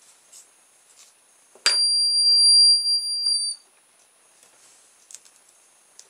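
Car reversing beeper's sounder giving one steady, very high-pitched beep about two seconds long, starting suddenly a little under two seconds in. A few faint clicks are heard around it.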